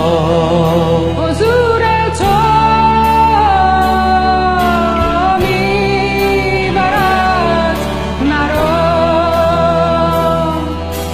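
A woman singing long held notes with vibrato over a backing track, in a slow Persian worship song.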